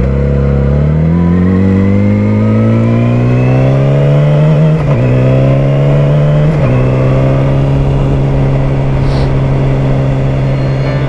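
Sportbike engine pulling away under acceleration, its revs climbing. The pitch drops with an upshift about five seconds in and again a second and a half later, then settles into a steady cruise.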